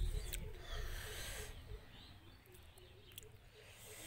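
Low rumble of wind and handling on a phone's microphone as it pans, fading after about a second and a half, with a faint chirp repeating about four times a second and a few light clicks.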